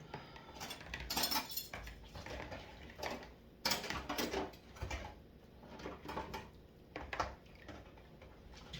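Dishes and cutlery clinking and clattering irregularly as they are handled, with a few sharper knocks about a second in, midway and near the end.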